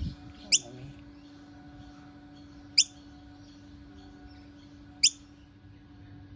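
Noisy miner giving three short, sharp, high-pitched calls, each dropping quickly in pitch, a little over two seconds apart.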